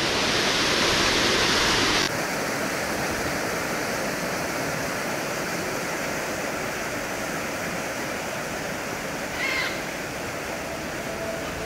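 Steady rushing of Bobla waterfall's falling water. It drops suddenly to a slightly lower level about two seconds in, and a brief higher sound stands out about nine seconds in.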